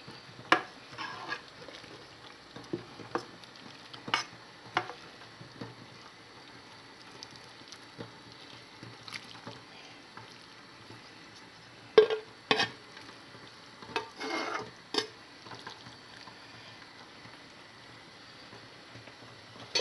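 Metal spoon scraping food from a frying pan into a pot of soup and stirring it: scattered clinks and knocks of metal on metal, the sharpest about twelve seconds in, with a short patch of scraping and stirring a couple of seconds later.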